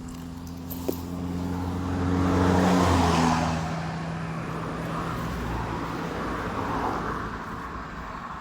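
A motor vehicle passes by: its engine hum and road noise build, are loudest about three seconds in, dropping slightly in pitch as it goes by, then fade away. A single sharp click sounds about a second in.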